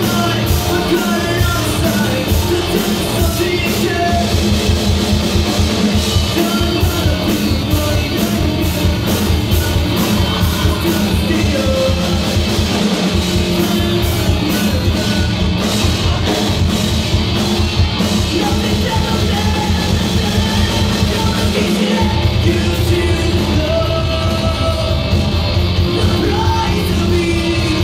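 Live rock band playing: electric guitars, bass guitar and a drum kit at full volume, with a singer's voice over the band. About two-thirds of the way through the low end gets heavier.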